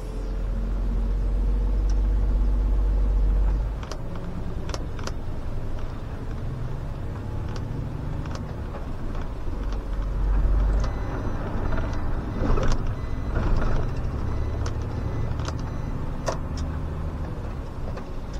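SOR CN10.5 intercity bus driving, its diesel engine running with a deep drone. The drone is strongest in the first few seconds and again around ten seconds in, with scattered clicks and knocks throughout.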